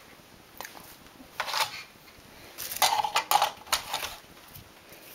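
Metallic clattering and clinking from a Neva-2 knitting machine's needle bed, in three short bouts, the loudest about halfway through.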